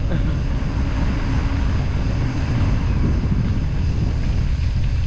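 Wind buffeting the microphone of a moving mountain bike's camera, a steady rough low rumble, with tyre noise rolling on a concrete road.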